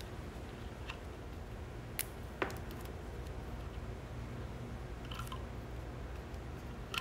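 Quiet handling sounds of hands wrapping electrical tape around plastic wire nuts on lamp wiring: a few small ticks and clicks, with two sharper clicks about two seconds in, over a steady low room hum.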